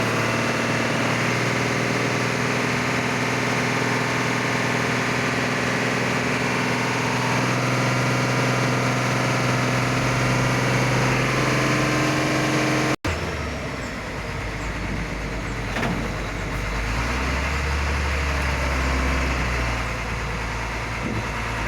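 Hino tronton truck's diesel engine running steadily. It cuts off abruptly about two-thirds of the way through, and a deeper, low engine rumble follows.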